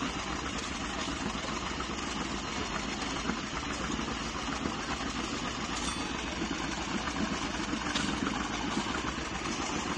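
1948 John Deere B tractor's two-cylinder engine running steadily.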